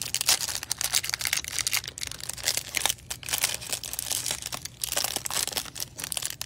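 Plastic wrapper of a pack of trading cards crinkling and tearing as hands open it and handle the cards, a dense, irregular crackle.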